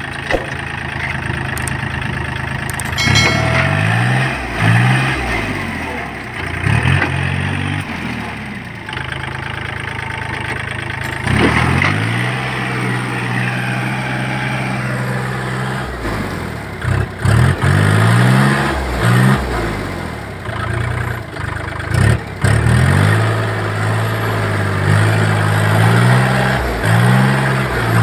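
Kubota L4018 tractor's three-cylinder diesel engine working in deep paddy mud. It surges up and down in pitch again and again in short bursts, and settles at a steadier speed in between.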